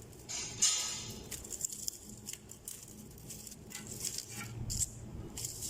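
Rustling and small clicks of dried decorative stems being handled, with a longer rustle near the start and scattered softer handling sounds after.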